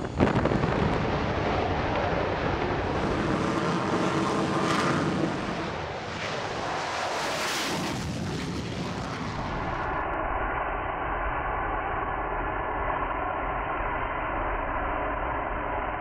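Jet engine noise of an X-47B unmanned aircraft during a carrier catapult launch. There is a sharp bang just after the start and steady jet noise, with two swelling surges of hiss in the middle. From about ten seconds in, a duller, steady engine drone takes over.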